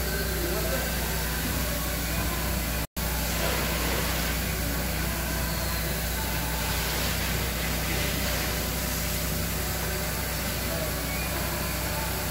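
Aerosol cleaner sprayed through a straw nozzle into the spark plug wells, hissing over a steady mechanical hum. The sound cuts out for an instant about three seconds in.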